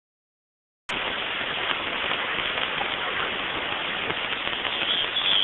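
Steady hiss of radio static from a receiver, starting suddenly about a second in after silence.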